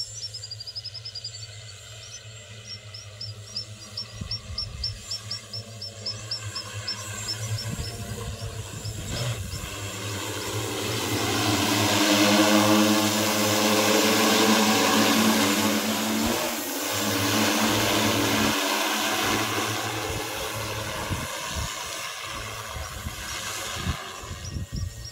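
Multirotor agricultural spray drone flying low over the crop. Its rotor hum builds to its loudest about halfway through as it passes overhead, then fades as it flies away.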